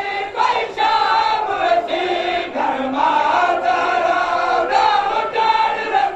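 A crowd of men singing a noha, a Shia lament in Saraiki, together in a chanting melody, with repeated sharp slaps of hands striking chests (matam) among the voices.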